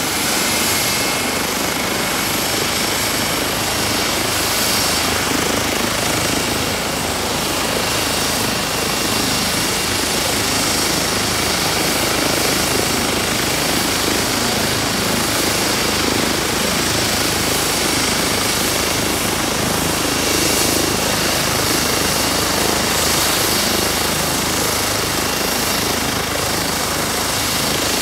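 Airbus H135 (EC135) medical helicopter running on the ground with its rotor turning before lift-off: a steady rush of rotor noise with a thin, high turbine whine over it.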